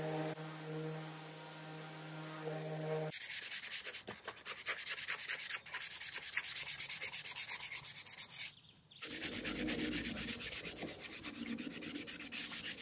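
An electric random orbital sander runs on wood with a steady low hum and stops abruptly about three seconds in. Then sandpaper is rubbed by hand over the wood in quick, even strokes, with a brief pause about two-thirds of the way through.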